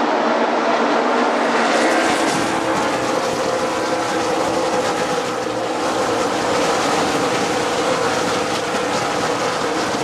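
NASCAR stock cars racing past at full speed, their many V8 engines blending into one loud, continuous drone. The sound turns brighter and higher-pitched about two seconds in.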